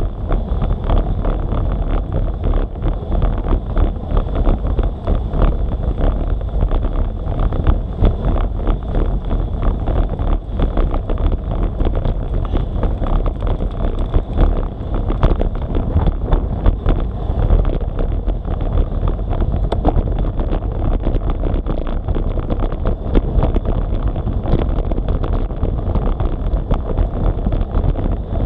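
Wind buffeting the microphone of a bike-mounted action camera on a moving road bike, a steady low rumble with fast flutter, mixed with the hiss of tyres on a wet road.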